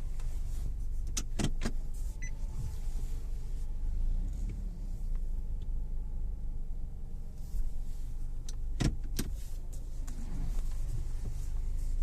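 2019 Nissan Rogue's front end clunking and popping as the steering wheel is turned: a quick cluster of sharp knocks about a second in and another cluster near the end, over a steady low hum.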